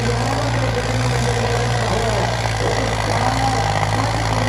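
Diesel tractor engines running with a steady low drone.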